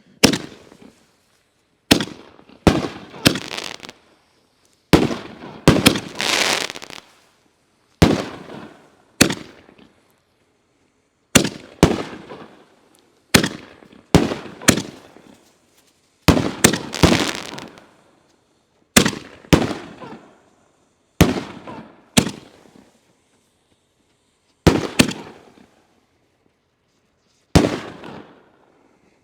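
6-inch King Dragon consumer canister shells going off one after another in a fused sequence: about two dozen sharp booms, each dying away within a second or two.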